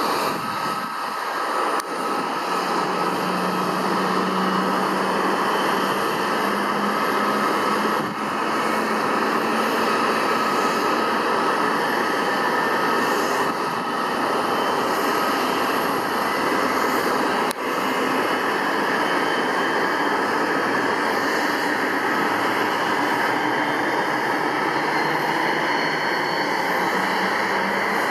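Steady jet-engine noise from airliners, a continuous rushing sound with a low hum in the first several seconds.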